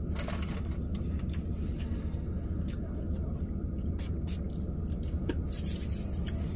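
Steady low hum inside a parked car's cabin, from the car idling, with scattered light crinkles and clicks of paper burger wrappers being handled.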